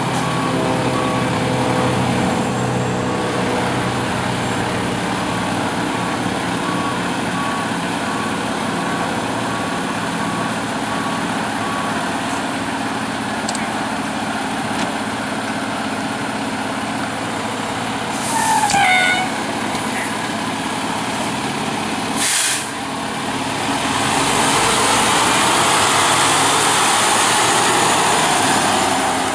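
A Pierce fire engine's diesel engine runs steadily, with a regular beeping over it for the first part. About three-quarters of the way through comes a short sharp hiss of air from the air brakes. Then the engine noise swells as the truck pulls away.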